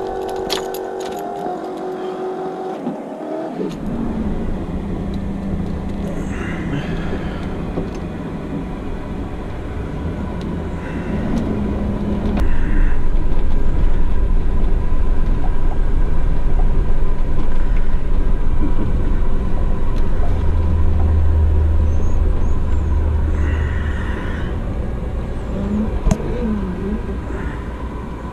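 A motor vehicle running with a steady low rumble, growing clearly louder and deeper about twelve seconds in, with a few short higher squeaks over it.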